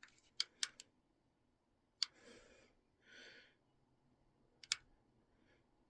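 A few sharp, separate clicks: three close together near the start, one about two seconds in and one near the end, with two short soft rustles in between.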